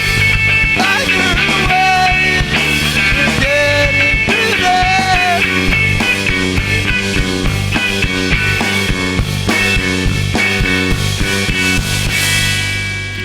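Live rock band playing loud, punk-style music. Near the end the playing stops and the last chord rings on and fades.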